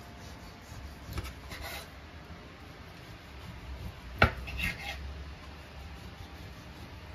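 A knife scraping and knocking on a cutting board while food is being cut: a few short scrapes, then one sharp knock about four seconds in, over a low steady hum.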